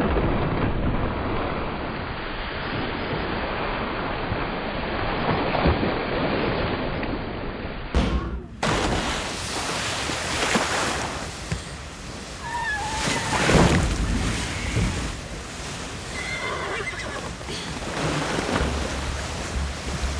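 Rushing, churning seawater of a ferry's wake and a splash. It is muffled for about the first eight seconds, then turns brighter after a sudden cut. A horse whinnies briefly a little past halfway.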